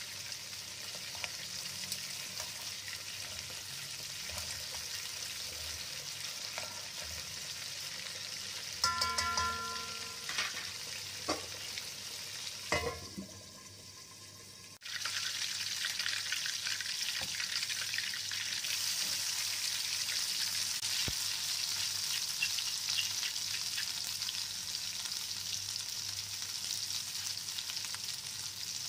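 Hot oil sizzling steadily in a pan as stuffed squid and then a chilli spice paste fry. A few metallic clanks and a short ring come between about nine and thirteen seconds in. The sizzle then dips for a moment and comes back louder.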